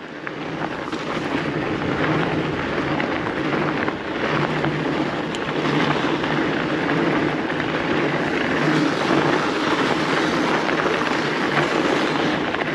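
Fat bike tyres rolling fast over packed snow on a downhill: a steady humming, rushing noise with wind on the microphone mixed in.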